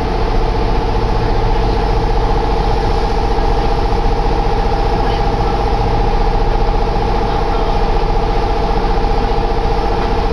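Steady hum of a red Kintetsu electric train standing at the platform: a two-note electrical hum over a low rumble, holding the same pitch throughout.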